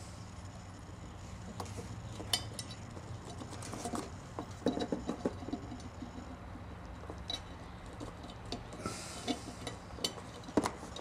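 Small metal parts of a Victor induction phonograph motor handled by hand during reassembly: scattered light clicks and taps, with a quick cluster about halfway through and a sharper click near the end, over a low steady hum.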